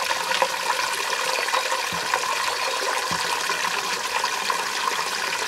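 Rainwater running from a water-butt tap into a metal saucepan, a steady stream splashing into the pan.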